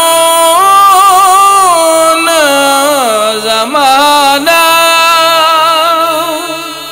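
A man singing a noha, a Shia lament for Husain, in Punjabi: long held notes that glide and waver between pitches, with a faint low pulse repeating beneath the voice.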